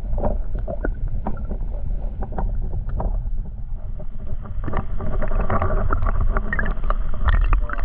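Muffled underwater sound from a camera held in shallow seawater: a steady low rumble of moving water with scattered clicks and knocks, louder and busier from about five seconds in.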